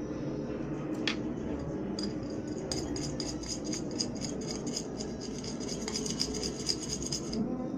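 A utensil stirring and beating a slime mixture in a bowl, clinking rapidly and repeatedly against the bowl's side. The clinking starts about two seconds in and stops shortly before the end.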